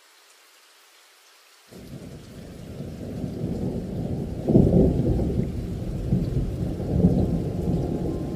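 Recorded thunder and rain, part of the background soundtrack: a low rumble comes in abruptly about two seconds in and builds, with rolls of thunder swelling near the middle and again near the end.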